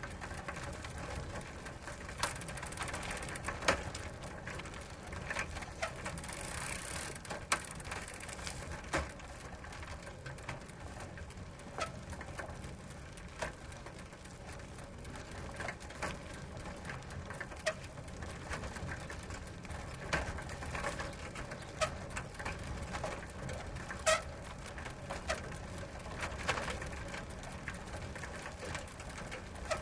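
Bicycle ridden slowly: a steady rolling rustle from the tyres with irregular mechanical clicks and rattles from the chain and ratcheting hub.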